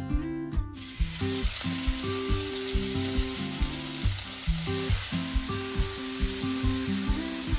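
Food sizzling as it fries in oil in a pan; the sizzle starts suddenly about a second in and then holds steady. Acoustic guitar background music with a steady beat plays throughout.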